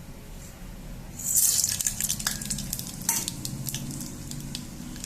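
Ingredients tipped into hot ghee and oil for a tempering (tadka): a sudden loud sizzle about a second in, then steady frying with many sharp crackles and pops.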